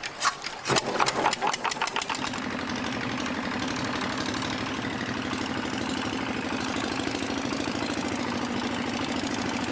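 Boat engine: a rapid run of uneven knocks for about the first two seconds, then it settles into a steady, even running note.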